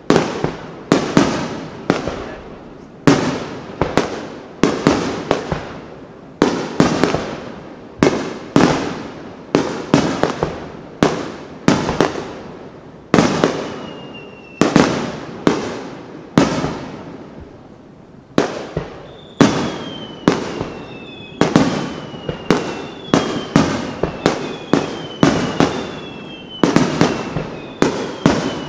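Aerial firework shells bursting in rapid succession, a sharp boom about every second, each trailing off as it echoes. About halfway in, short falling whistles begin to sound among the bursts, and they come repeatedly near the end.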